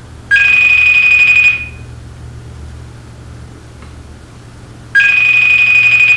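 iPhone playing the FaceTime outgoing-call ring through its speaker: two rings about a second long, roughly four and a half seconds apart, each a short lower note followed by a steady high tone. The call is still ringing unanswered.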